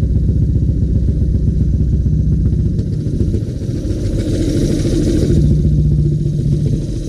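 Yamaha Exciter 135 single-cylinder four-stroke engine, a 62 mm big-bore build converted to fuel injection, idling steadily at about 2,000 rpm just after starting.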